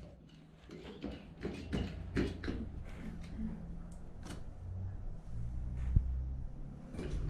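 Scattered clicks and knocks from a pressure canner lid being handled and set up for a dial-gauge test, with one sharp knock about six seconds in. A low hum comes in about halfway.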